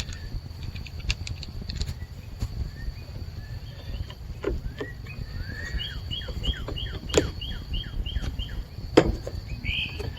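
A bird singing repeated short chirping notes, including a quick run of about eight, over a faint steady high insect-like tone. Several sharp clicks and knocks from plastic HVAC box parts being handled, the loudest about seven and nine seconds in.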